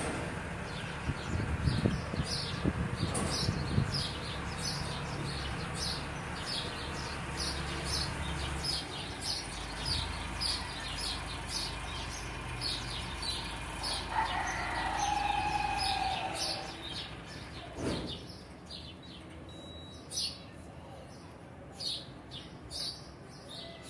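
A small bird chirping over and over, about two short high chirps a second, over a low steady hum that stops about 16 seconds in. A single longer call comes about 14 seconds in, and a knock near 18 seconds.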